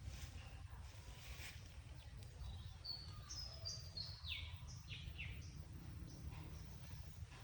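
A songbird sings one short phrase about halfway through: a few high, clear notes, then quick downward slides. Under it runs a steady low rumble.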